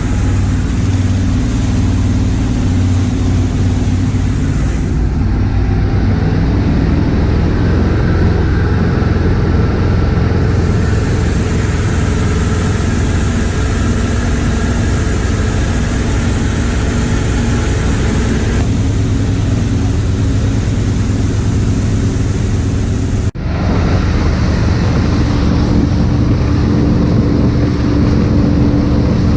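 Boat's twin 350 V8 inboard engines running steadily under way at speed on a test drive, with a constant rushing noise over them. The sound breaks off for an instant about three-quarters of the way through and carries straight on.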